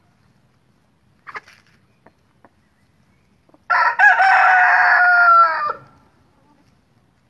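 Rooster crowing once, a loud two-second crow held fairly level and dipping a little at the end. Shortly before it, about a second in, a bird gives a brief sharp squawk.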